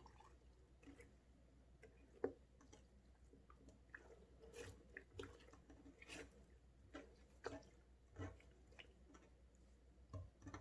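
Faint, irregular sticky squelches and clicks of slime being squished and worked.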